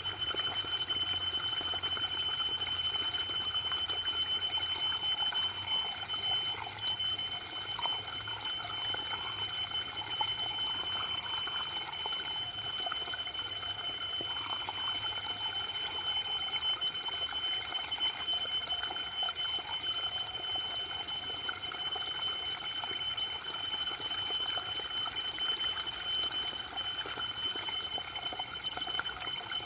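Waterfall: a steady rush of falling water, with a constant high tone humming alongside it.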